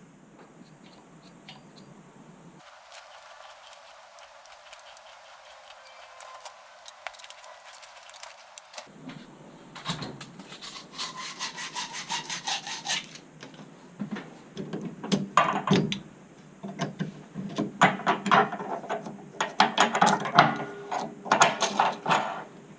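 Rhythmic back-and-forth scraping strokes of a hand tool working on material, in several runs from about ten seconds in and growing louder toward the end.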